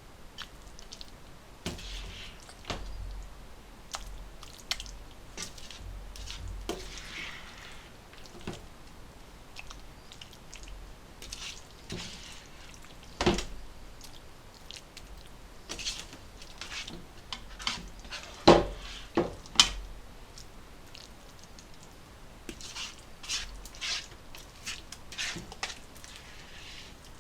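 Irregular clinks, taps and knocks of dishes and utensils, the loudest three sharp knocks in the middle, with soft mouth-like sounds between them.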